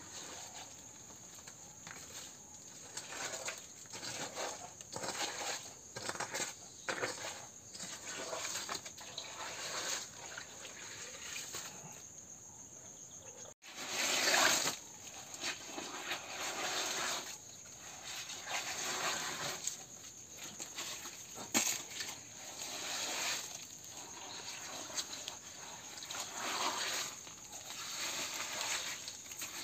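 Hands scraping and scooping wet soil and gravel in irregular strokes, over a steady high hiss.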